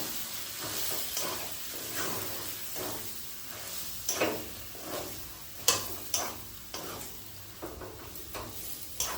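Chicken, mashed potato and grated egg filling being stirred and scraped around a kadai, with a faint sizzle underneath. The scraping strokes come irregularly, about two a second.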